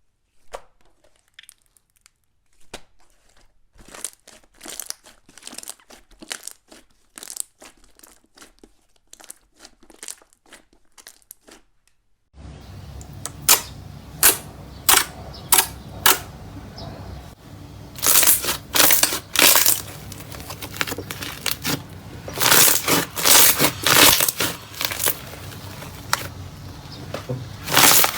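Slime being squeezed and pulled by hand, giving sharp crackles and pops. About twelve seconds in, the sound changes abruptly to a louder slime with a steady hiss behind it and bursts of loud, clustered crackling.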